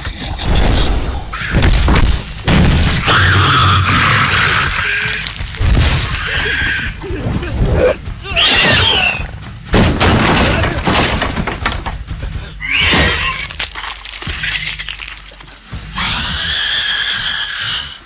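Movie action-scene soundtrack: a creature smashing through wooden planks, with repeated crashes and splintering and several loud high-pitched cries, over dramatic music.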